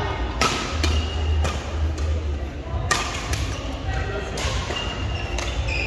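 Badminton rackets striking a shuttlecock during a rally: several sharp smacks at irregular intervals, over background voices.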